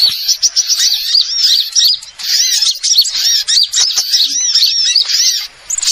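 Bird-lure recording of many small songbirds chirping and twittering at once: a dense, busy chorus of quick high notes, with short lulls about two seconds in and near the end.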